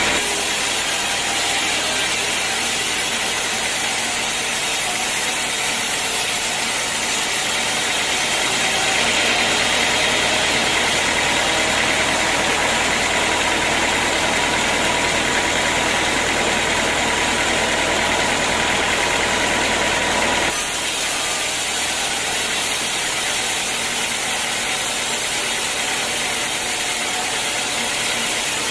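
Sawmill machinery running steadily, most likely a band sawmill cutting a teak log. About two-thirds of the way through the sound drops slightly and changes in tone, then runs on steadily.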